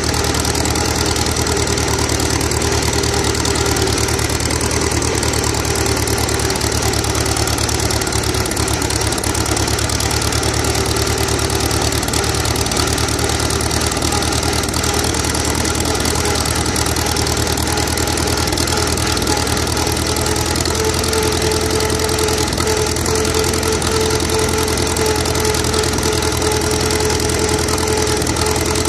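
Farmall F-20 tractor's four-cylinder engine running steadily under way, with an even, rapid exhaust beat and a steady whine that steps up slightly in pitch and grows louder about twenty seconds in.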